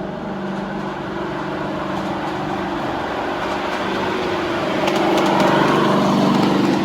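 A small engine running steadily, growing gradually louder over about five seconds.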